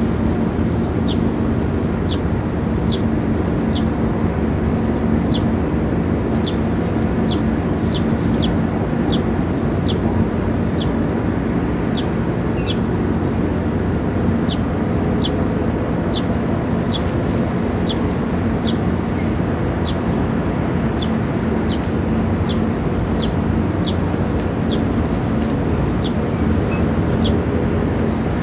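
Steady mechanical drone with a low hum, unbroken throughout. Short high chirps repeat about once a second over it.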